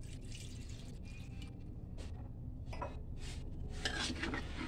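Water poured from a glass into a wok of chicken in sauce, then a metal spoon stirring and scraping against the wok, with several light clinks in the second half.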